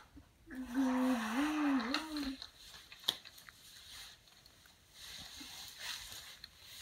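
A child's voice making a wavering, breathy engine noise with the mouth for about two seconds, playing at driving a toy car, followed by a single sharp click of toys knocking together.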